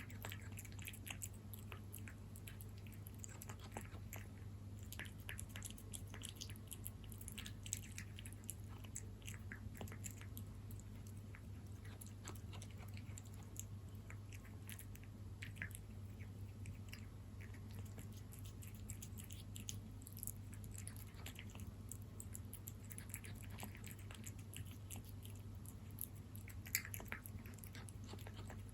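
A cat chewing and smacking on moist salmon wet cat food, a steady run of small, irregular wet clicks and munches, over a steady low hum.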